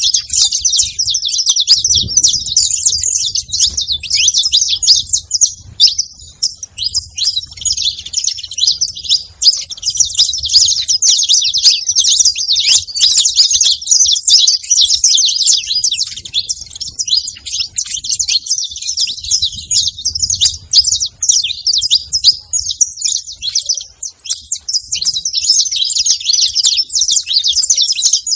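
A flock of saffron finches calling together: a dense, unbroken chatter of many overlapping high chirps.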